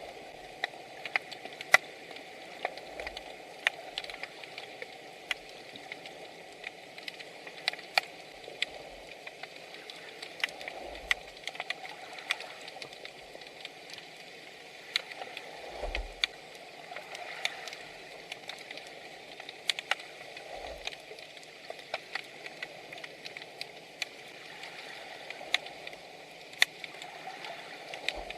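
Underwater ambience recorded by a submerged camera: a steady muffled water hiss with frequent sharp, irregular clicks and crackles, and a few soft low thumps.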